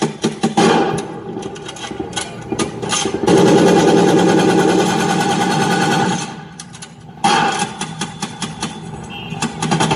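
Battle sound effects of a light-and-sound show, played over loudspeakers: rapid rattling gunfire for the first three seconds, then a loud, steady engine-like noise for about three seconds that fades. The rattling comes back with a sudden loud burst about seven seconds in.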